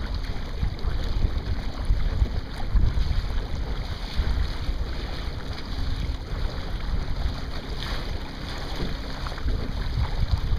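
Wind buffeting the microphone in uneven gusts over water rushing and splashing along the hull of a Sunfish sailboat under way.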